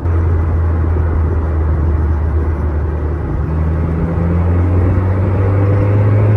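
Renault Sport Spider's 2.0-litre four-cylinder engine accelerating hard, its note climbing slowly in pitch through the second half, heard from the open cockpit with wind noise.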